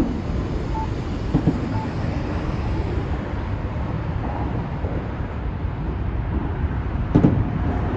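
Steady low rumble of city traffic, with a short knock about seven seconds in.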